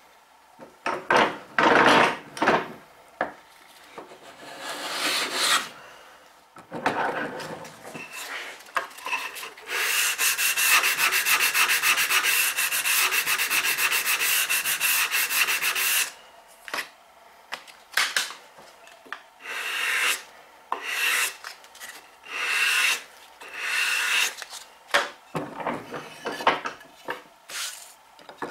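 A hand plane takes a few strokes over an assembled wooden bridle joint to trim it flush. Then a sanding block is rubbed rapidly back and forth over the wood for about six seconds, followed by slower single rubbing strokes about once a second.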